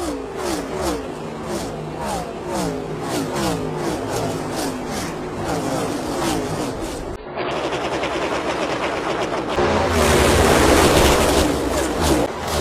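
NASCAR Next Gen Cup cars' pushrod V8 engines at racing speed: a string of cars passing one after another, each engine note dropping in pitch as it goes by. After a cut about seven seconds in, a dense, steady sound of several engines running together, louder from about ten seconds in.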